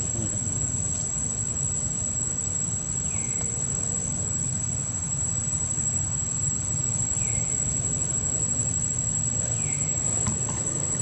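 Outdoor ambience: a steady low rumble under a constant high thin whine, with three short falling chirps about three, seven and ten seconds in.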